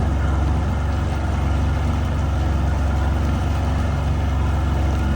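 Old 60 hp Mercury oil-injected two-stroke outboard motor running steadily under way, pushing the boat along at cruising speed with a constant low drone.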